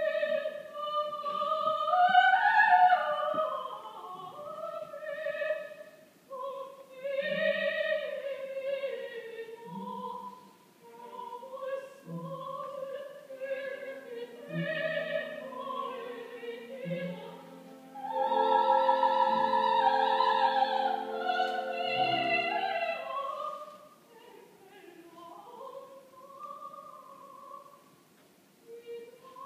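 Operatic duet sung with orchestral accompaniment, a soprano voice carrying the high line. About two-thirds through the singing swells into a long loud held passage over sustained orchestral chords, then falls back to softer phrases.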